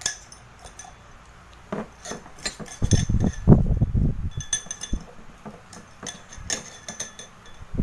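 Metal spoons clinking and scraping against a tall drinking glass as a drink is stirred, with a few dull, low thumps about three seconds in.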